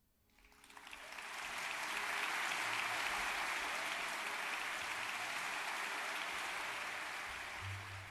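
Concert-hall audience applauding after a string quartet piece. The clapping swells over the first second, holds steady, and dies away near the end.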